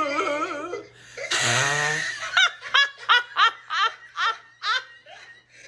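A person laughing: a wavering voiced sound, a short hissing burst, then a long run of short 'ha' bursts about three a second that fade near the end.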